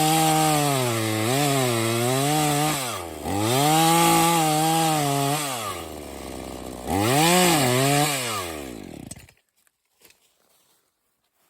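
Chainsaw cutting into a tree trunk, its engine pitch repeatedly dipping and climbing back as the chain bites. It cuts off suddenly about nine seconds in.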